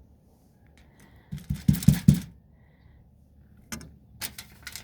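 Spoon knocking against a container and tortilla as rice is dished onto a burrito: a quick run of four or five knocks about a second and a half in, then a few lighter clicks near the end.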